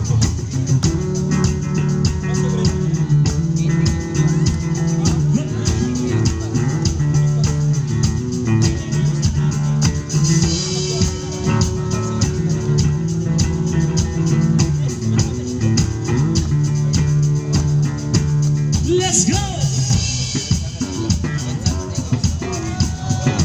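Live rock band playing, with drum kit and electric guitars together.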